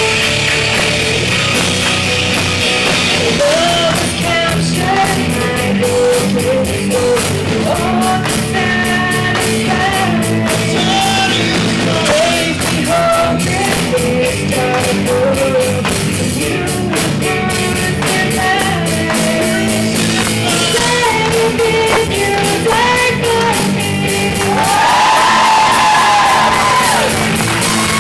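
Live band playing a rock-style worship song with a lead singer, drums and guitar.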